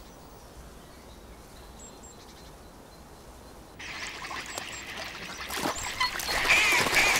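Faint low background at first. About four seconds in, pond sounds begin: trickling, splashing water and the high peeping of duckling and coot chicks, growing louder toward the end.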